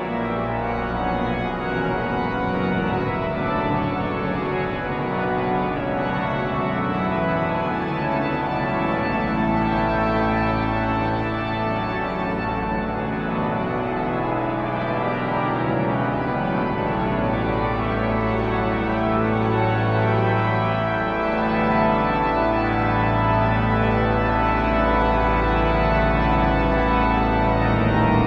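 Cathedral pipe organ playing sustained chords over running figures, with deep pedal notes entering about nine seconds in and again from about seventeen seconds. It slows into long held chords near the end.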